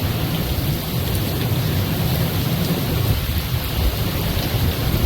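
Tropical-storm wind and heavy rain: a steady rush of rain with a fluttering low rumble of gusting wind.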